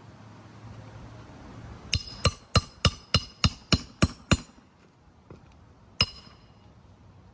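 Hammer blows during a roof shingle repair: nine quick, ringing strikes at about three a second, then a single strike a couple of seconds later.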